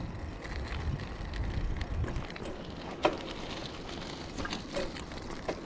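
Bicycle riding on a road, tyre noise and wind on the microphone, with a few small clicks and one sharp tick about three seconds in.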